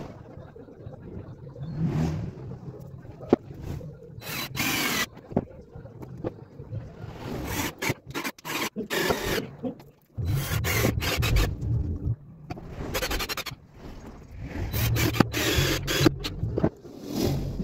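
Scraping and rubbing noises in irregular bursts of a second or two, with a low rumble under some of them.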